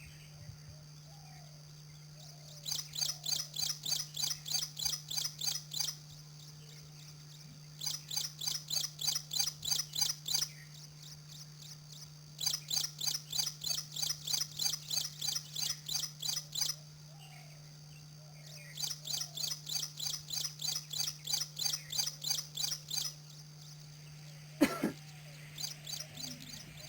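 A small bird singing in four runs of rapid high notes, about four a second, with pauses of a second or two between runs. A steady low hum sits underneath, and a sharp click comes near the end.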